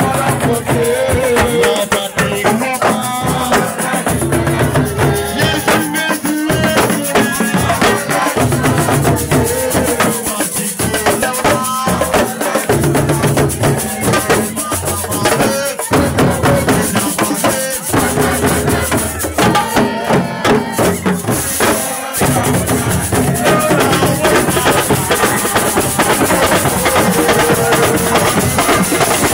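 Music with a steady beat of drums and shaker rattles, with a repeating low bass line and a melody over it.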